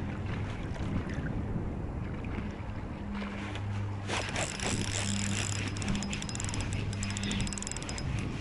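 Small spinning reel being cranked from about four seconds in: a fast run of fine clicks with a faint steady whine, stopping near the end. A low hum comes and goes underneath.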